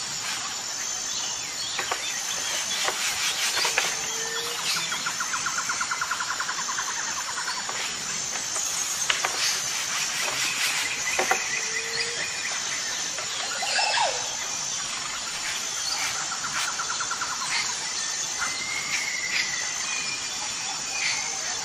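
Woodland ambience: assorted birds chirping and calling, with two rapid trills, over a steady high-pitched whine.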